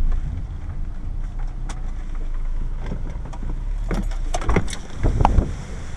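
Car engine running low, heard from inside the cabin as the car pulls into a garage, with a cluster of clicks and knocks about four seconds in.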